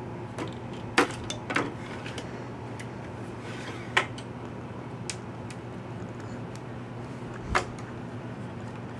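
Sharp metal clunks and clicks as a Tektronix plug-in module is handled and slid into the bay of a Type 564 oscilloscope mainframe, about four knocks spread out, over a steady low electrical hum.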